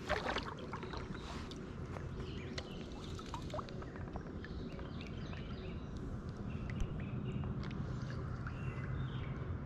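Spinning reel being cranked to retrieve a cast lure, with small irregular clicks and handling noise and a short burst of noise at the start. Birds chirp repeatedly in the background.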